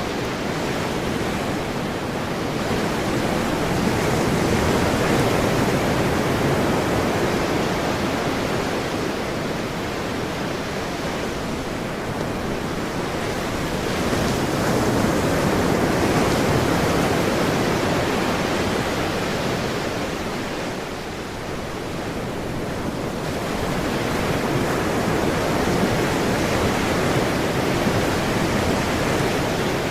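Ocean surf: a continuous rush of breaking and washing waves that swells and eases slowly, with a brief lull about two-thirds of the way through.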